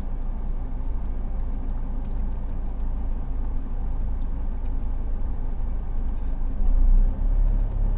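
Car engine idling, a steady low rumble heard inside the cabin, with faint gulps as water is swallowed from a plastic bottle.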